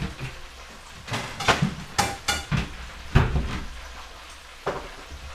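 Kitchen clatter: a handful of separate knocks and clinks as plates and cupboard doors are handled, over a faint steady background.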